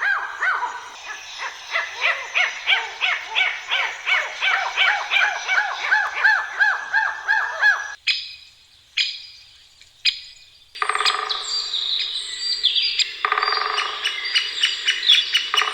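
A chorus of chirping animal calls, many short arched notes in quick succession. They stop abruptly about eight seconds in, a few single sweeping calls follow, and a different, denser chorus of chirps starts near eleven seconds.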